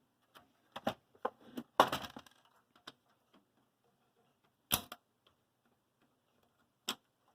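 Sharp clicks and snaps of a receiver's case clip being pried and forced free by hand, a few at a time with short pauses, loudest about two seconds in and again near five seconds.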